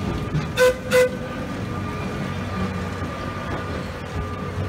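Vintage wooden Sóller electric tram passing and giving two short toots of its horn, under half a second apart, about half a second in. A steady hum from the moving tram runs underneath.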